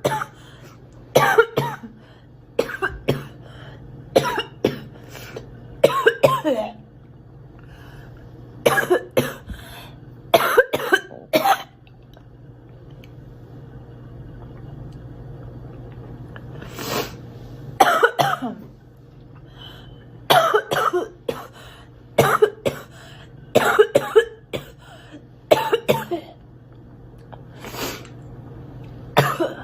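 A girl coughing over and over in short bouts of two or three coughs, a bout every second or two, with a lull of about five seconds a little before halfway.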